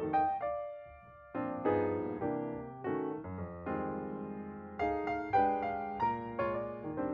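Background piano music: struck notes and chords that ring and fade, in short phrases.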